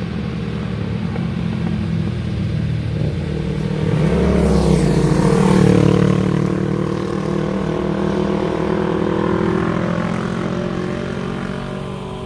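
Two motorcycles riding past on the road, their engines growing louder as they approach, loudest about five seconds in as they go by, then fading away.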